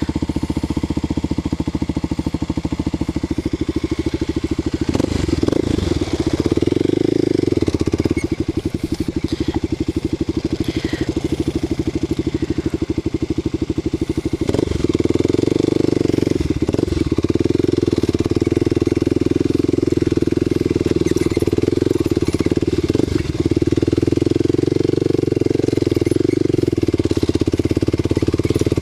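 Single-cylinder four-stroke engine of a Kawasaki KLX250SF supermoto, bored out to 330 cc and fitted with a Muzzy exhaust, running as the bike is ridden slowly over a rough dirt trail. The engine note rises and falls as the throttle is worked, and it gets louder from about halfway in.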